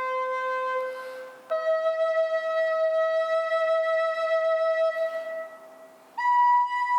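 A flute-like wind instrument playing slow, long held notes, each higher than the last: one note breaks off about a second and a half in, the next is held for several seconds and fades out, and a higher note starts sharply near the end.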